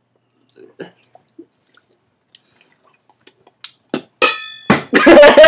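Faint mouth and chewing sounds, then about four seconds in a ringing clink of glass followed by loud spitting and hacking.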